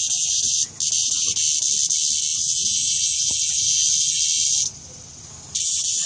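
A cicada on the ground buzzing loudly in long bursts while a dog noses at it. The buzz breaks off for a moment early on, stops for about a second near the end, then starts again.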